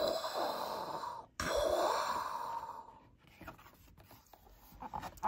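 A man's breathy mouth noises, two long whooshing exhales like a rocket taking off, followed by faint clicks and rustles as a board-book page is turned.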